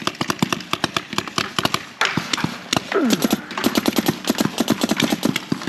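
Paintball markers firing in fast strings of sharp pops, about ten shots a second, with a shout about three seconds in.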